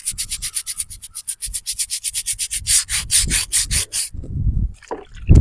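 Stiff bristle brush scrubbing a headstone in fast back-and-forth strokes, several a second, stopping about four seconds in. A loud low bump follows near the end.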